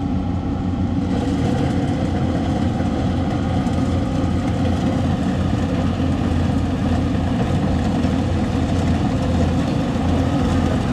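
Engines of rice-harvesting machines, a combine harvester and a tracked grain carrier, running steadily as one constant low drone.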